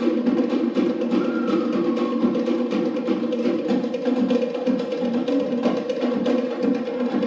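Cook Islands drumming, with wooden slit drums and drums playing a fast, dense, driving rhythm without a break.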